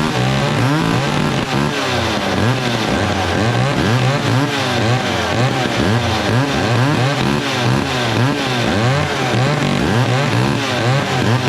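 Vintage McCulloch 710 two-stroke chainsaw running loud, its engine speed rising and falling over and over. It is running again on freshly reworked carburetion, fuel lines and ignition.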